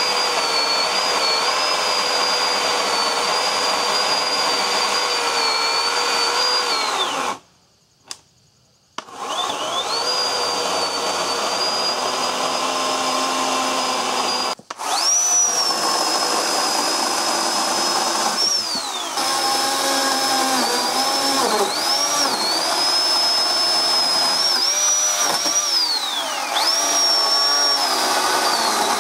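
Oregon 40V battery chainsaw's electric motor whining at a steady high pitch as it cuts a birch log, the pitch sagging and recovering again and again as the chain bites. About seven seconds in the whine winds down and stops, then spins back up about two seconds later.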